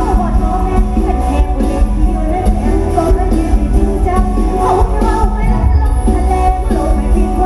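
Live band music with a heavy bass beat and a singer's voice.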